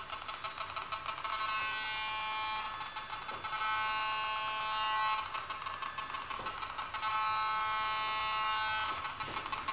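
Electronic buzzing alert tone from a BugHunter Professional BH-03 bug detector's speaker. It switches back and forth between rapid pulsing and a continuous buzz as the antenna sweeps.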